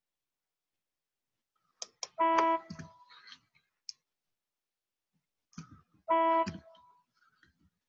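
Computer mouse or keyboard clicks, each group followed by a short E4 note in an organ voice played back by the Sibelius notation software as a note is selected. The click-then-note sequence comes twice, about two seconds in and again about six seconds in.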